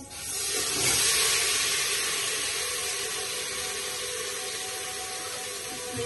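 Kitchen tap running, water splashing through frozen mixed vegetables in a plastic colander as they are rinsed. It comes on at the start, is loudest about a second in, and shuts off near the end.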